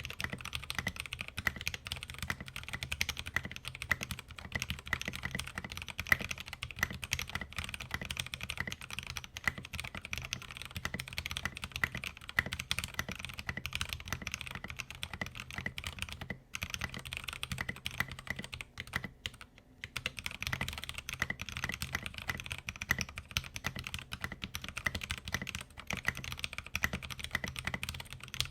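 Fast continuous typing on a 65% mechanical keyboard (LTC Nimbleback) with factory-lubed Gateron Cap Milky Yellow linear switches and thin Tai-Hao Sakura keycaps, a dense run of key clacks. It breaks off briefly about sixteen seconds in and again around nineteen to twenty seconds.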